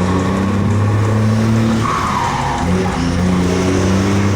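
24.250 truck's diesel engine running on the move, a loud, steady low drone whose pitch shifts about halfway through.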